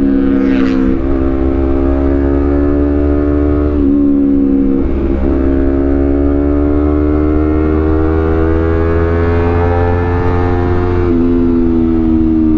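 Honda CBR250RR's parallel-twin engine running through a Villan Z2 carbon aftermarket exhaust under way. The engine note climbs slowly with road speed and drops in pitch suddenly a few times, about a second in, near four seconds and near the end, as gears change.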